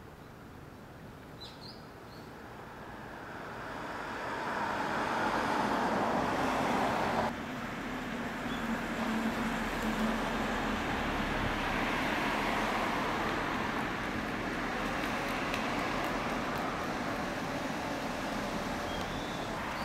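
Road traffic noise from the street: a vehicle going by swells over a few seconds and cuts off suddenly about seven seconds in, then a steady wash of traffic continues.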